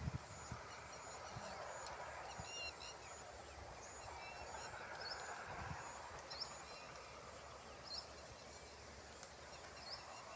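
Faint outdoor ambience: a low, even background hiss with short, high-pitched bird chirps scattered throughout and a few soft thumps.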